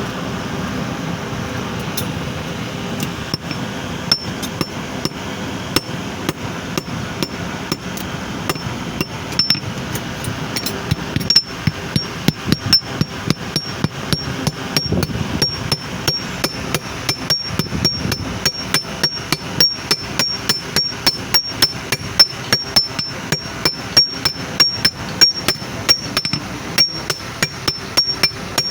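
Blacksmith's hammer striking metal on an anvil, each blow ringing briefly and high. The blows are scattered at first, then from about eleven seconds in settle into a steady rhythm of two to three strikes a second. A steady low background noise runs beneath.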